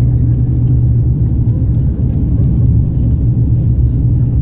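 Aircraft taking off: a loud, steady low rumble with a constant low hum underneath.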